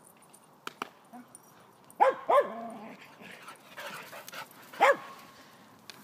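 A dog barking: two short barks in quick succession about two seconds in, and one more near five seconds.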